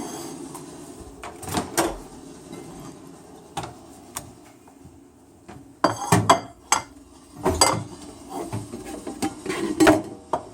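Scattered knocks and clatter of a plate and kitchen things being handled and set down, with several quick clacks about six seconds in and more near the end.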